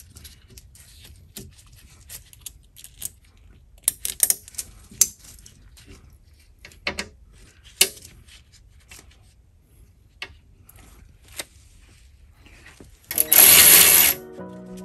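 Workshop handling sounds: scattered light metallic clicks and clinks of tools and parts being handled during an oil cooler installation. Near the end, a loud rush of noise lasting about a second.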